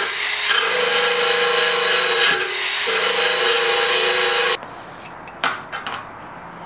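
Cordless 20V power tool with an abrasive attachment grinding paint off a steel car frame rail down to bare metal, running in three passes with brief breaks and stopping sharply about two-thirds of the way in. A few sharp metal clicks follow as the welder's ground clamp is fitted to the bare spot.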